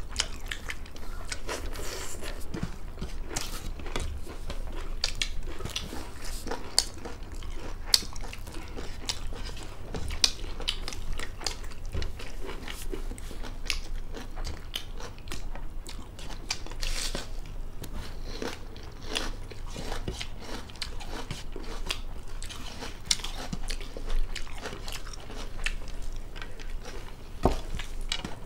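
People eating by hand: crunchy bites and chewing, with many sharp, irregular crunches.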